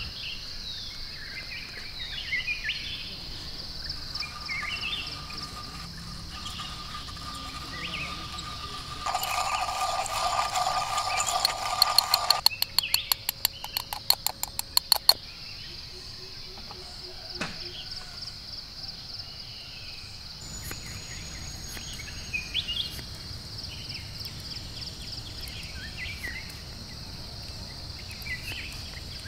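Forest ambience: insects trilling steadily with a pulsing beat and scattered short bird chirps. Around the middle, a few seconds of louder humming give way to a quick run of loud clicks.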